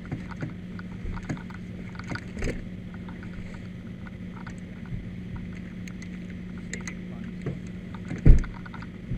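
An engine idling with a steady low hum, under small scattered clicks and taps of hand tools working at a car battery's terminals, with one loud knock near the end.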